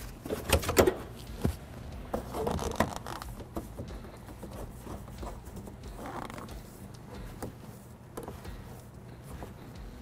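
Hands putting the spare tire tools back into their holder under the truck's rear seat: plastic and vinyl rustling and scraping with light clicks and knocks, busiest in the first second.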